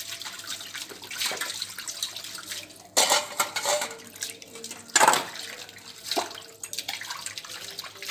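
Steel dishes being washed by hand: water poured and splashed over metal pots and cups, with clinks of steel on steel. There are two loud splashes or clatters, about three and five seconds in.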